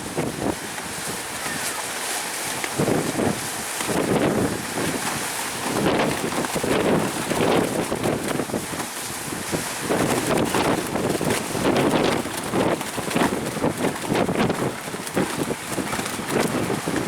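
Strong wind buffeting the microphone in irregular gusts, over the steady rush of high surf.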